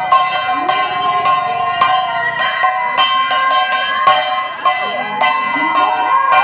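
Temple bells rung in rapid, irregular strikes, their tones ringing on and overlapping.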